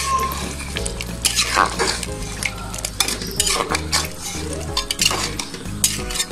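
A spatula stirring chunks of mutton in a wet yogurt gravy in a metal pot. It scrapes and clinks against the pot in quick, irregular strokes.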